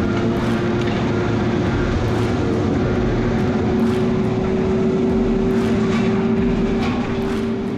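Tigercat 726G feller buncher running under power: a steady engine drone with a high, steady whine and faint knocks now and then, fading slightly near the end.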